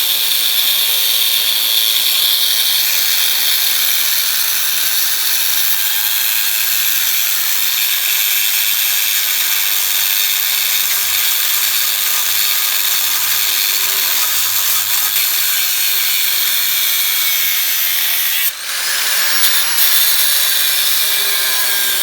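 Power tool cutting through the rusted steel of a truck frame, a loud steady cutting noise that stops briefly near the end and then starts again.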